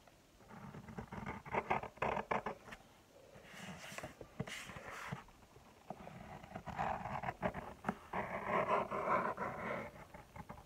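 Drawing on paper: a pen scratching and rubbing over the sheet in short, irregular strokes, with brief pauses.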